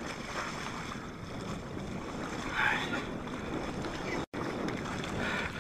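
Steady rushing wind noise on the microphone, with a faint short sound about two and a half seconds in; the sound cuts out for a split second near the end.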